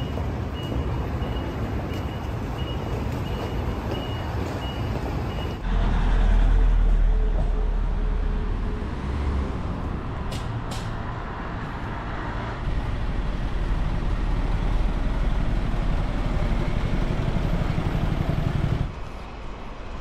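Urban street ambience of road traffic. For the first few seconds a high beep repeats a little under twice a second, then the sound cuts abruptly to a louder, deeper traffic rumble, with two short clicks about halfway through.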